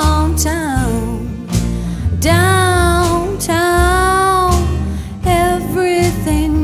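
Background music: a song with a sung vocal of long, held notes over a steady bass line.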